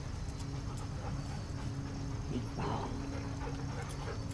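A dog whining briefly about two and a half seconds in, over a steady low hum.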